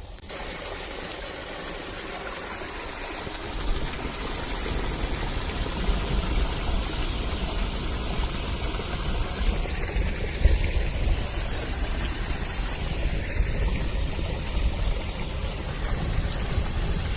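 Heavy rain with rushing runoff water: a steady, even rushing hiss that grows louder about three and a half seconds in.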